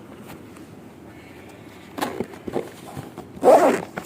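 Rustling and scraping of a GoPro camera's packaging being handled and opened, in short bursts, with the loudest burst about three and a half seconds in.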